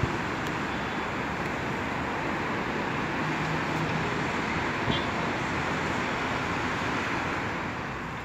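Steady hum of road traffic from a busy city road below, with a brief high-pitched sound about five seconds in.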